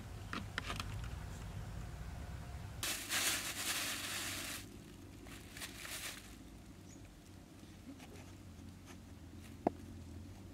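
A thin plastic bag crinkling and rustling as it is handled, loudest for about two seconds a third of the way in, with a few light knocks before it and one sharp tap near the end.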